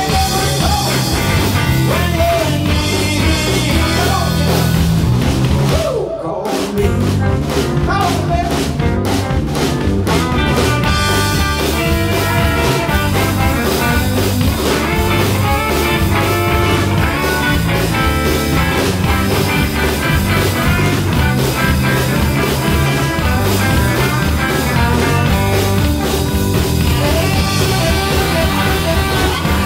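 Live rock band instrumental section: electric guitar, bass and drum kit playing together, with a saxophone playing the lead melody. The music dips briefly about six seconds in.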